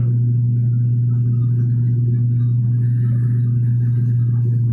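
Airliner engine noise heard inside the passenger cabin during the climb after takeoff: a loud, steady, deep hum with an even rumble beneath it.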